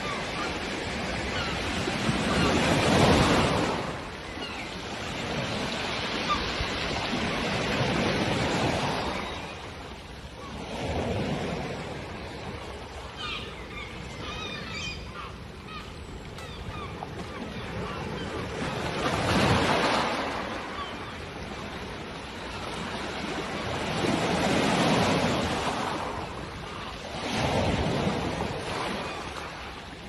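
Sea waves breaking and washing over a pebble beach. The surf swells and eases in a surge every few seconds.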